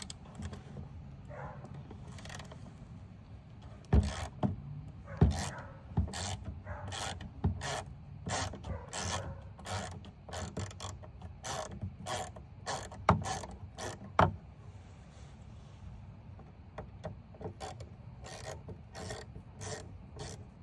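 Hand ratchet clicking in quick runs as the screws holding a blind spot monitor sensor are loosened, with a few sharp knocks of the tool among them.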